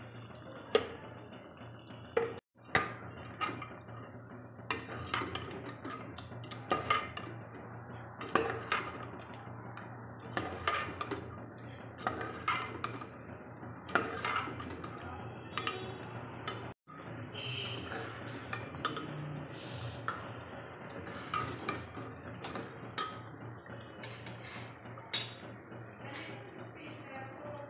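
Metal ladle clinking and scraping against the side of a metal cooking pot as chicken curry is stirred, in irregular knocks about once a second over a steady low hum.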